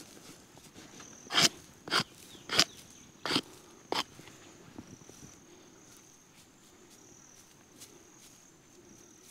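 A hand brush swept over dry soil and grass in five quick scratchy strokes, about one every 0.6 s, smoothing loose dirt over a freshly set dog trap. After that, only faint sweeping and background.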